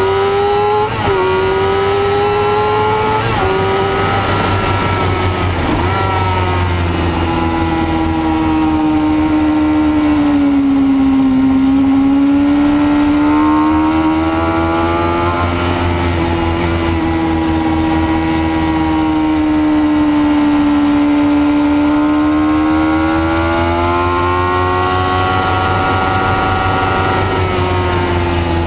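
Racing motorcycle engine held at high revs, heard from a camera mounted on the bike. Its pitch drops sharply at two quick upshifts about a second and three and a half seconds in, then sags and climbs slowly as the bike leans through long sweeping corners, with another shift near the end.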